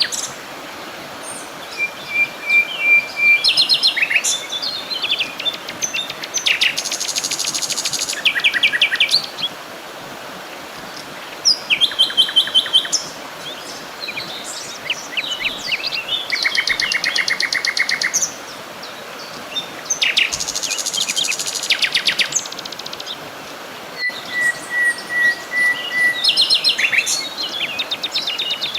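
Songbirds singing: phrases of rapid trills and chirps with short pauses between them, and a long level whistled note twice, over a faint steady hiss.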